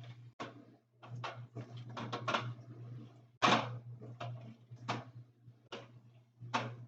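Items and containers being handled and set down while a refrigerator is reorganised: a dozen or so irregular knocks and clatters, the loudest about three and a half seconds in, over a steady low hum.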